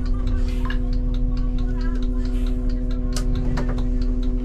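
Volksbus 18-330 city bus running at idle, heard from the driver's cab: a steady hum and low rumble, with a fast, even ticking of about four ticks a second.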